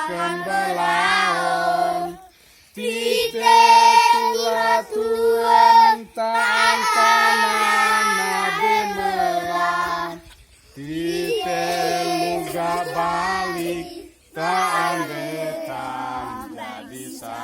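A group of children singing together in parts, unaccompanied, in long phrases with short breaks between them.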